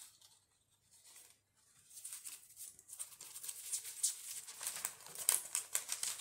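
Sheets of decorative paper rustling and crinkling as they are handled. The sound starts about two seconds in and grows busier toward the end.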